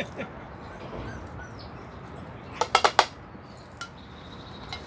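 A quick run of four or five sharp metallic clinks about two and a half seconds in, from metal around dogs being fed. Faint short high squeaks come near the start.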